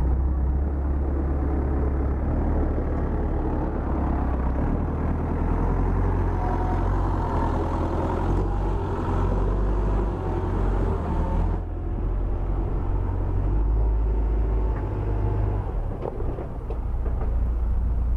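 A steady, loud low rumble of a running motor vehicle, with its upper noise thinning about two-thirds of the way through.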